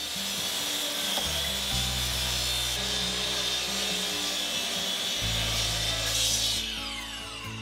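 Miter saw crosscutting a live-edge walnut slab: the blade's steady high whine over the cutting noise, then the whine falling away as the blade winds down about six and a half seconds in.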